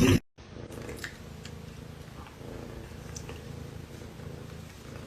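Domestic cat purring, a steady low rumble with a slow pulse. A louder sound cuts off abruptly just at the start.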